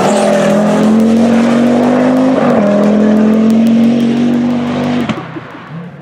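Audi Quattro rally car's five-cylinder engine at full throttle, its pitch climbing steadily through one gear, then a quick upshift about two and a half seconds in and climbing again. The engine note cuts off abruptly about five seconds in as the driver lifts off.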